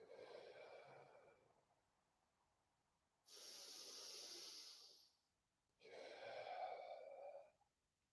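A man's slow, deep breathing, faint and close to a clip-on microphone: three breaths a second or two apart, each lasting a second or two. This is a calming focus-and-recharge breathing exercise after training.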